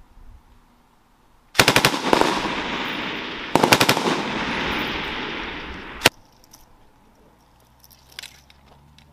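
Two short bursts of machine-gun fire about two seconds apart, each followed by a long rolling echo, then a single shot about six seconds in.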